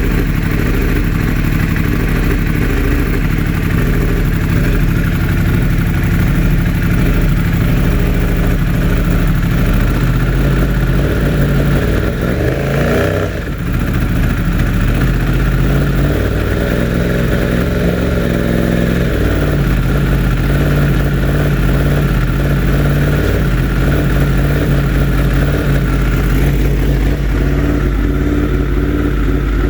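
2016 Yamaha R1's crossplane inline-four engine running steadily with a constant misfire on cylinder 4, which swapping its coil with cylinder 1's has not cured. About 13 seconds in, the engine note briefly dips and swings back.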